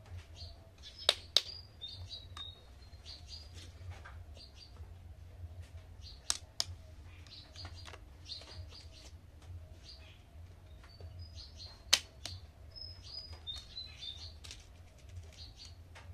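Hard plastic toy kitchen utensils clacking against other plastic toys as they are picked up and set down: a few sharp clicks, a quick pair about a second in, then single ones about halfway and near the end. Short high chirps come and go throughout over a steady low hum.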